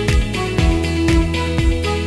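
Background music with a steady beat, drum hits about twice a second under sustained instrumental notes.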